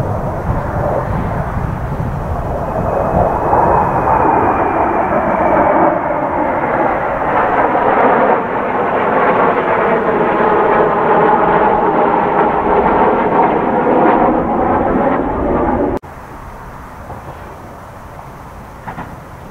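Kawasaki T-4 jet trainers in a three-ship formation flying past, their turbofan engines making loud, dense jet noise. A high whine falls in pitch in the first few seconds as they pass. About three-quarters of the way through, the sound drops abruptly to a much quieter, distant jet rumble.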